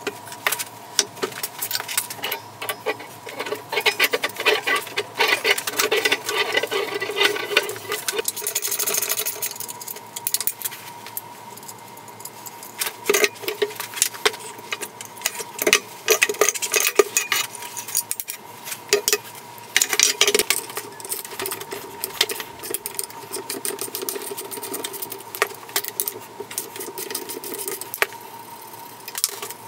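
Ratchet and wrenches clicking and clinking on steel bolts as a home-built tire power hammer is taken apart, in irregular rattling bursts. A faint steady whine sits underneath.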